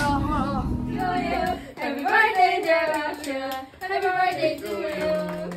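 Several young women singing together, with background music and its bass playing under them for the first second and a half before it drops out.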